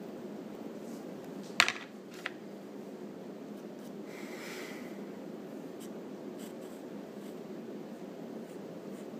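Wooden pencil sketching on paper, a steady scratching. Two sharp clicks stand out about a second and a half and two seconds in, and there is a brief soft hiss around four seconds.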